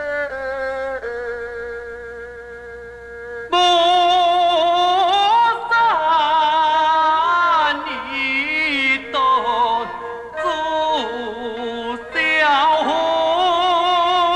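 Taiwanese opera (gezaixi) singing with instrumental accompaniment. A few seconds of held instrumental notes lead into a sung lyric line with heavy vibrato, delivered in phrases with short breaks.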